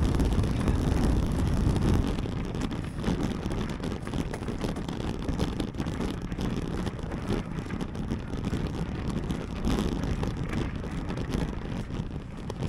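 A mountain bike being ridden at speed: wind rushing over the microphone and tyre rumble, with many small rattles and clicks from the bike. It is louder for the first two seconds or so.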